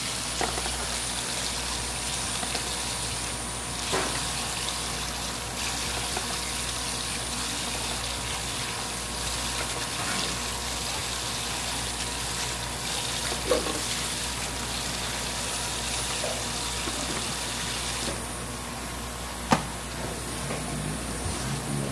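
Running water from a tap, a steady hiss that thins about three-quarters of the way through. A few sharp knocks come through it, the loudest near the end.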